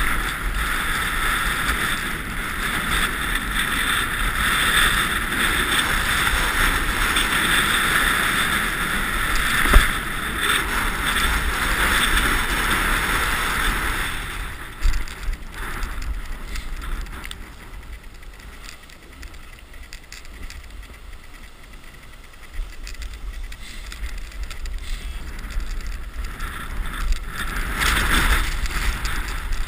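Wind buffeting an action camera's microphone, with the steady scraping hiss of sliding down a groomed snow run. It is louder for the first half, drops away around the middle as the pace eases, and rises again near the end. One sharp knock comes about ten seconds in.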